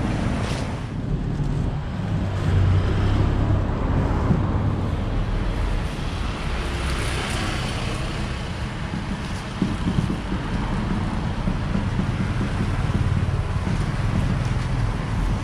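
Steady road traffic noise with a low rumble, swelling and fading once around the middle as a vehicle goes by.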